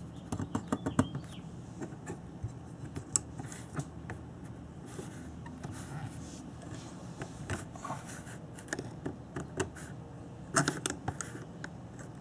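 Light metallic clicks and scrapes of a large steel divider's points and a steel ruler being handled and set on a tabletop while the divider is opened to a measurement: a cluster of clicks in the first second, a few scattered ones, and another cluster near the end.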